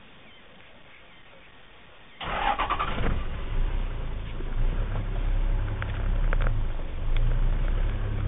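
A vehicle engine starts about two seconds in, with a short burst of cranking noise, then keeps running steadily at a low pitch.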